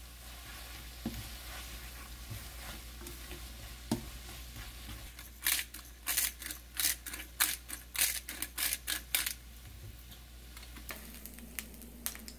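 Stir-fried ramen noodles and cabbage sizzling in a wok as they are tossed with a wooden spatula and chopsticks. In the middle comes a quick run of about a dozen sharp clacks and scrapes of the utensils against the pan.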